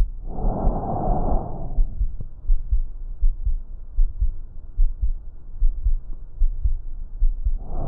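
Breath sounds heard through a stethoscope: one soft, airy breath phase lasting about a second and a half, then a long pause until the next breath starts near the end. A heartbeat thumps underneath.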